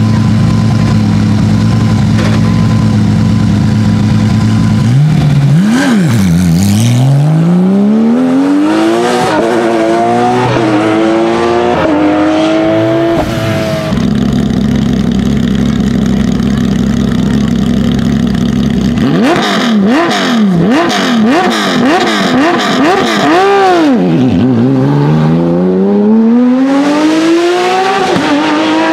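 Porsche 997 GT3 rally car's 3.6-litre flat-six idling steadily, blipped twice, then accelerating hard with the pitch rising and dropping at each sequential upshift. About halfway through the engine idles again, is revved in about five quick sharp blips, and pulls away, climbing through the gears.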